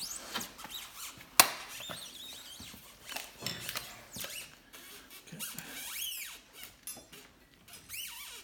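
Snowmobile's stock exhaust muffler being pulled out of the engine bay: repeated short high squeaks of parts rubbing against each other, with a sharp clack about a second and a half in.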